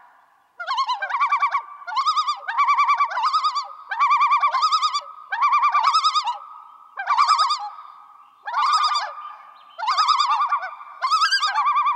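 A warbling, bird-like trilling call repeated in short phrases, roughly one a second, each phrase wavering rapidly in pitch.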